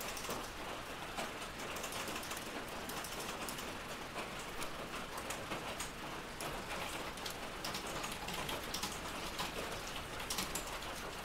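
A steady hiss with a dense, irregular patter of small ticks.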